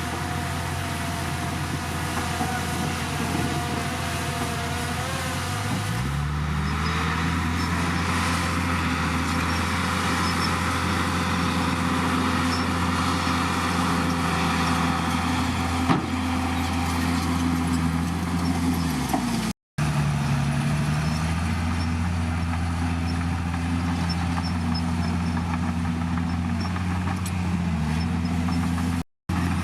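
Komatsu D51PX bulldozer's diesel engine running, stepping up in pitch about six seconds in as it is throttled up and holding there under load, then dropping back near two-thirds through. Two brief dropouts to silence where the footage is cut.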